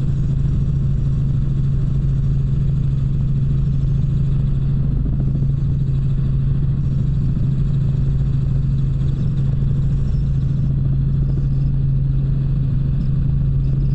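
Tour helicopter in flight, heard from inside the cabin: a steady, unchanging drone with a strong low hum.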